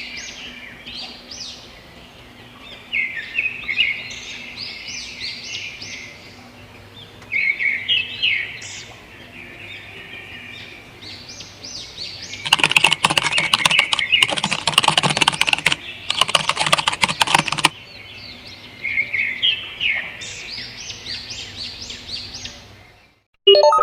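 Small birds chirping in quick repeated phrases. About halfway through, a few seconds of rapid clicking like keyboard typing, in three runs, louder than the birds. The birdsong fades out near the end.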